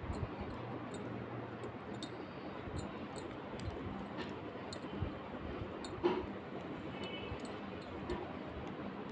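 Knitting needles clicking lightly and irregularly as stitches are worked, over low background noise.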